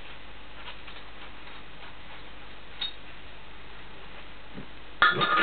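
Small steel parts handled at a milling machine: a faint click about three seconds in, then near the end a short loud clatter of metal knocking together with a brief ringing tone.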